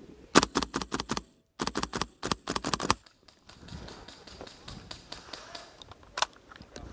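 Airsoft gun firing two rapid bursts of about eight to ten shots a second, each lasting about a second, followed by one more single shot near the end.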